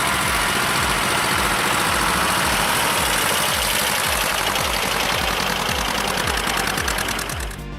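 Engine of a heavy vehicle running steadily under a loud, even hiss; the sound drops away near the end.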